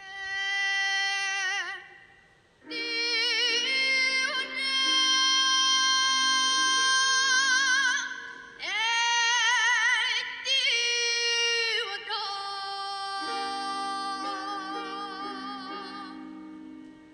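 Background music: a high singing voice holds long, slow notes with a wavering vibrato, sliding up into each phrase, over sustained accompaniment chords.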